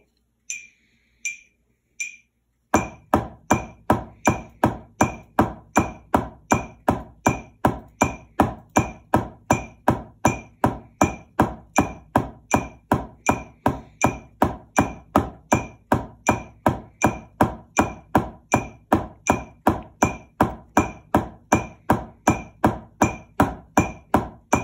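Wooden drumsticks striking a drum practice pad at an even pace of about three strokes a second, played as eighth notes at 80 beats per minute: eight strokes with one hand, then eight with the other. A metronome clicks alone for the first two or three seconds before the strokes start, and keeps clicking under them.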